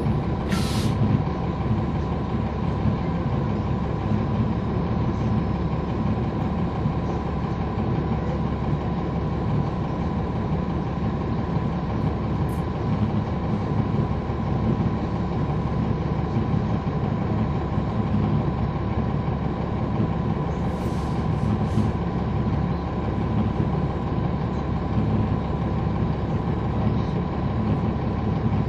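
Cummins ISL9 diesel engine of a NABI 40-SFW transit bus, heard from the rear seats, running steadily with a low rumble and a steady whistle above it. A short hiss of air sounds about a second in.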